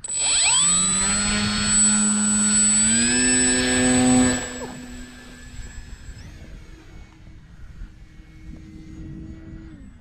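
Electric motor and propeller of an RC glider spooling up with a rising whine that steps higher about three seconds in, then falls away sharply about four and a half seconds in as the plane is thrown and flies off. A faint whine carries on from the climbing plane and drops in pitch near the end as the throttle comes back.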